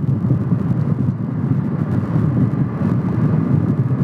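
Steady wind rush and road noise while riding a TVS Ntorq 125 scooter, the wind buffeting the microphone.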